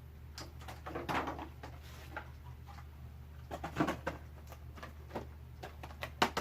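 Plastic action-figure packaging being handled: rustling with scattered clicks and taps, and a sharp click near the end, over a steady low hum.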